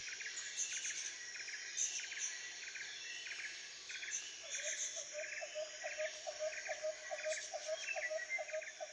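Faint nature ambience of insects and calling birds: a steady high buzzing haze with a short chirp repeating about twice a second, joined about halfway through by a lower, evenly repeated call of about three or four notes a second.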